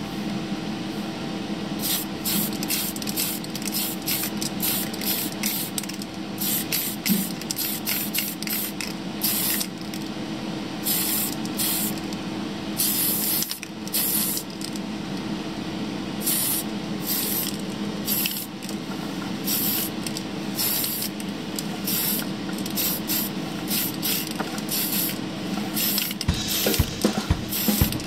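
Tamiya aerosol spray can hissing in many short bursts and a few longer passes as paint is sprayed onto a plastic scale model, over a steady low hum.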